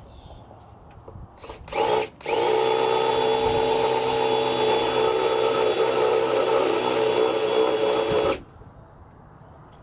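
Cordless drill drilling out rivets: a short burst about a second and a half in, then after a brief pause a steady run of about six seconds that rises in pitch as the drill spins up, then stops.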